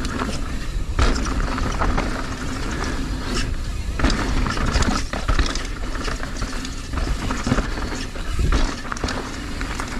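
Mountain bike riding fast down a rough dirt trail: tyres rumbling over the ground and the bike rattling, with frequent sharp knocks from hitting roots, rocks and landings.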